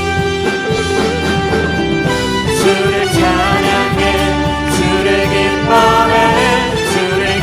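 Live band playing an instrumental stretch of a carol, chords and bass under a melody line that bends in pitch from about three seconds in.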